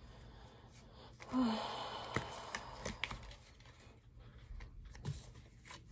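A deck of oracle cards being shuffled by hand: soft sliding of cards with a few light taps. About a second in there is a soft rush of noise lasting about a second, fading as it goes.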